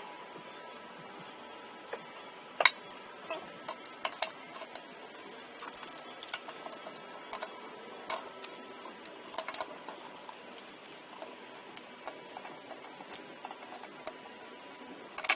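Sporadic light clicks and knocks of hard parts being handled, the sharpest about two and a half seconds in.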